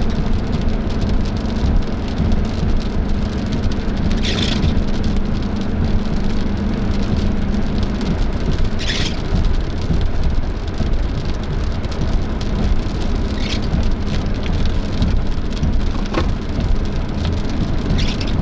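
Rain on a moving vehicle with road and engine noise heard from inside the cabin, and windshield wipers sweeping across the glass about every four and a half seconds.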